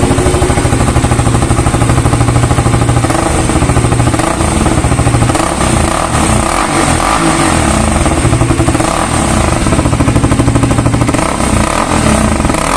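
KTM Duke 200 BS6's single-cylinder engine running through its exhaust, idling steadily and then taking a few light blips of the throttle from about four seconds in.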